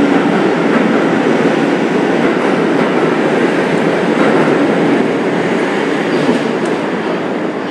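New York City subway train leaving the station, its cars running past at speed with loud, steady wheel and rail noise that starts to fade near the end as the last car pulls away.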